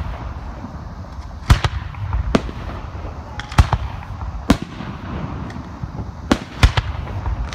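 Aerial firework shells bursting overhead at close range: about eight sharp bangs, some in quick pairs, over a continuous low rumble.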